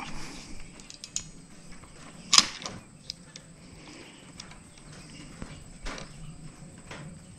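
Ratcheting crimping tool being handled while a small metal crimp contact for a solar-panel connector is set in its die: scattered small clicks, with one sharp, louder click about two and a half seconds in.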